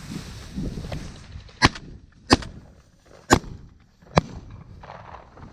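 Shotgun shots at a flushed pheasant: four sharp reports at uneven intervals, spread over about three seconds.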